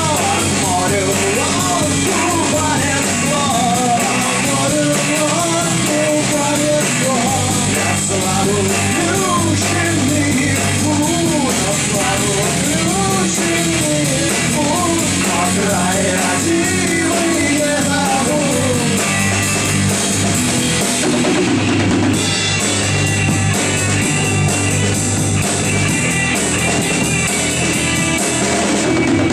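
Rock band playing an instrumental break: drum kit, bass and guitars, with a wavering lead melody over them.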